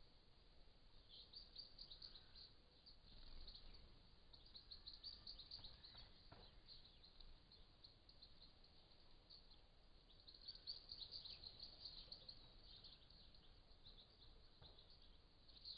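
Faint garden birds chirping and twittering in short high calls, busier in a few spells, over a low background rumble.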